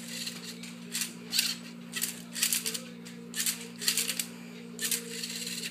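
Rubik's Cube solving robot turning the cube's faces, a short plastic clack or rattle roughly every half second to a second as each move is made, over a steady low hum.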